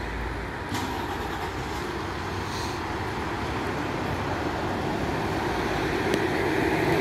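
A vehicle engine runs with a steady rumble that grows gradually louder toward the end.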